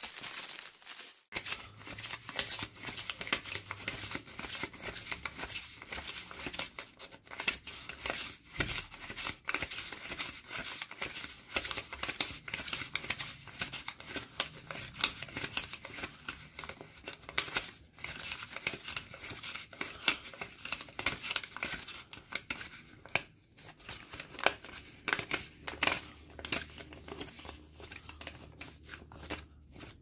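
Paper banknotes being handled, rustling and crinkling in a dense, irregular run of crisp crackles and snaps. It starts about a second in and stops just before the end.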